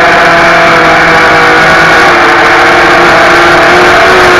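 FPV racing quadcopter's brushless motors (DYS Samguk 2300KV) and propellers whining in flight, heard from the drone's onboard camera. The whine is loud and steady, shifting slightly in pitch with the throttle.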